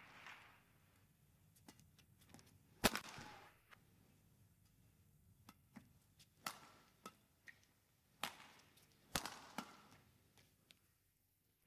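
Badminton rackets striking a shuttlecock: a handful of sharp, separate cracks, the loudest about three seconds in, with a few more spaced out over the second half.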